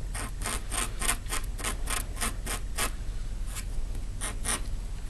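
A fingernail scratching briskly over organza sash fabric laid on a hard surface, working snagged threads back into place. About ten quick strokes come at roughly four a second, then after a short pause a few more follow near the end.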